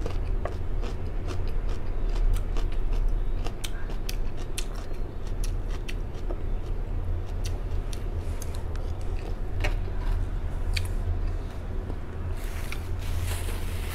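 Close-up chewing of a crisp lettuce and vegetable salad, with many small crunching clicks spread irregularly throughout, over a steady low hum.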